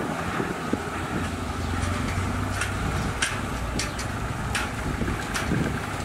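Crawler bulldozer's diesel engine running steadily under load as it pushes soil, with sharp knocks now and then.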